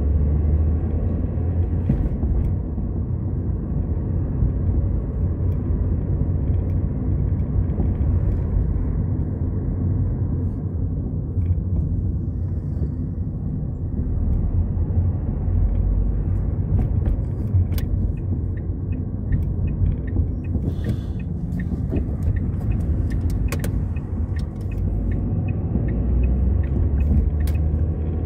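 Car cabin noise while driving: a steady low rumble of engine and tyres on the road, with a few light clicks in the second half.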